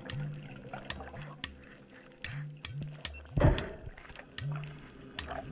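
Muffled underwater sound heard through a camera's waterproof housing: water sloshing with scattered sharp clicks, and a louder rush of water about three and a half seconds in. Quiet background music with a low bass line plays underneath.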